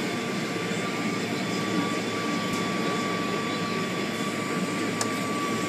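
Automatic car wash equipment running with a steady rushing noise and a faint high, steady whine; a small click comes about five seconds in.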